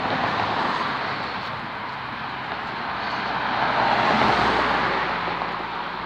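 Road traffic: cars passing close by with tyre noise that swells twice, loudest about four seconds in, with a low engine hum under the second pass.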